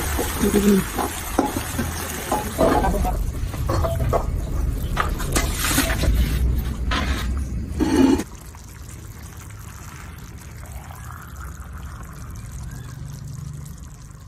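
Liquid being poured into a pan of raw chicken pieces, with irregular knocks of utensils against the pan. About eight seconds in it drops to a quieter, steady low background.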